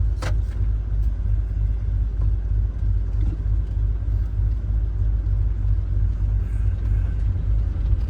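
Land Rover driving, giving a steady low engine and road rumble with no change in pitch.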